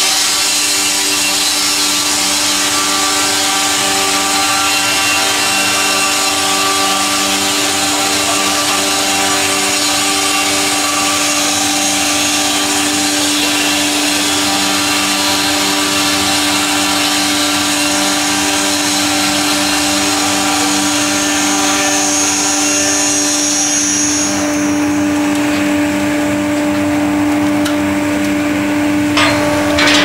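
Twin horizontal circular saw blades of a KP58 sawmill, driven by electric motors, running through a log: a loud, steady whine with several tones and a strong hiss. About 24 seconds in the high hiss drops away, and near the end a few sharp knocks of timber being handled.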